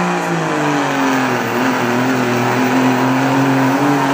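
1995 Dodge Ram's Cummins 5.9-litre inline-six turbo-diesel running hard under full load while pulling a weight sled. The engine note drops about half a second in as the load comes on, then holds steady.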